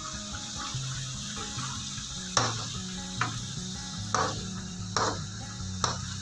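Metal spatula stirring sliced onions frying in oil in a frying pan, with a steady sizzle. About five sharp scrapes and knocks of the spatula against the pan come in the second half.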